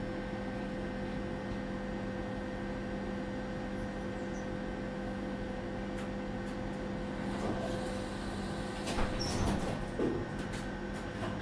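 Tatra T4DC tram heard from inside the car: a steady electrical hum made up of several fixed tones. Clicks and knocks join in about seven seconds in and are loudest around nine seconds in.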